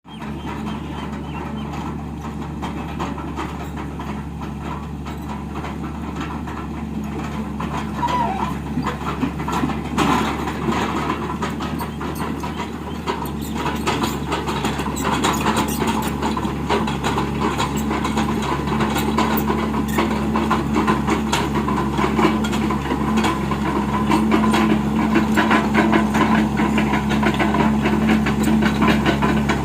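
Diesel engine of a Tata Hitachi excavator running steadily and growing gradually louder, with scattered clanks and knocks from about a third of the way in.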